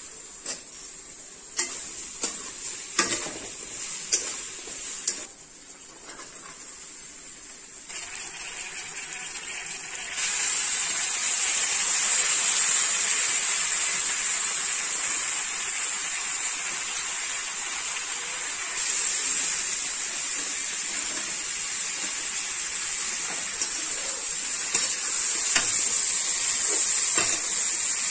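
Steel spatula clinking and scraping against a steel kadai, sharp clinks in the first five seconds, then diced vegetables frying with a steady sizzle that swells about ten seconds in, with a few more clinks near the end.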